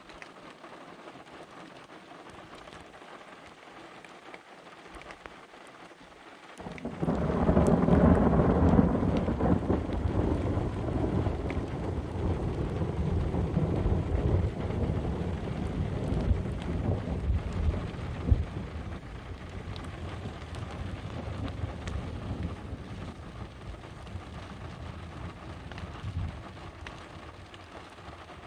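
Steady rain, then about seven seconds in a loud peal of thunder that swells quickly into a low rolling rumble and slowly dies away over some twenty seconds, with one sharp crack in the middle.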